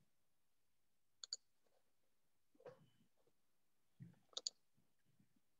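Computer mouse clicking over near silence: a quick double click about a second in and two or three more clicks a few seconds later, with faint low rustles between.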